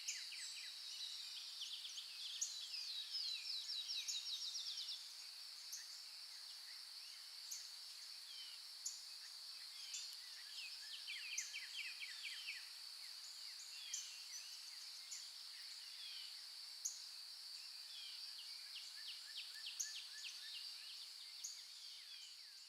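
Forest morning ambience: several birds calling, with rapid trills and short high chirps, over a steady high-pitched drone. It begins to fade out near the end.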